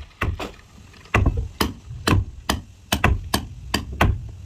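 Repeated hammer blows on wood, about three strikes a second, with a short pause just after the start, as a wooden fishing boat's hold and cabin timbers are knocked apart.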